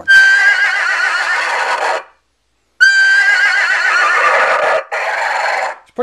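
Boom Blasters horse-sound electronic car horn, powered from a 12-volt battery, playing a loud recorded horse whinny twice. Each whinny opens on a held high note, then warbles and falls; the second runs longer and ends lower.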